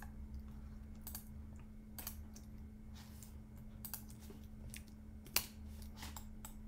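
Computer keyboard keys and clicks tapped at irregular intervals, with one sharper click about five seconds in, over a steady low electrical hum.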